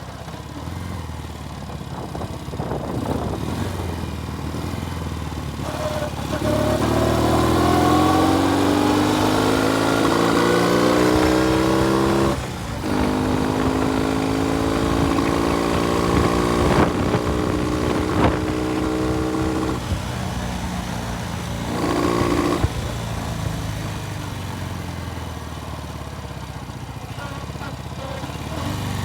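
Classic Norton motorcycle engine running under way on a test ride. It revs up and climbs in pitch, drops off sharply about twelve seconds in, climbs again and then eases back to a lower, steadier note for the last several seconds.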